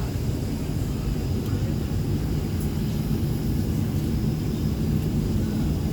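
Steady low rumble of an airliner's engines heard from inside the passenger cabin, while the plane is on the ground waiting for its takeoff roll.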